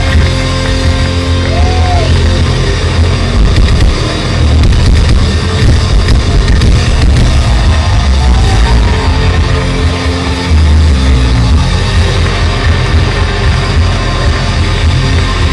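Heavy metal band playing live and loud, with distorted electric guitars over heavy bass and drums.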